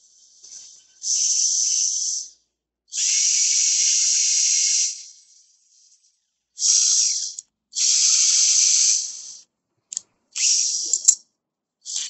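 Cordless drill boring into a small metal part held in pliers: the bit cutting metal gives a high hissing squeal that comes in repeated bursts of a second or two as the trigger is pressed and released, with a sharp click near the end.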